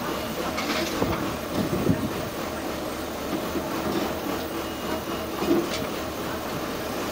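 Heavy truck running, a steady mechanical rumble broken by irregular clanks and knocks.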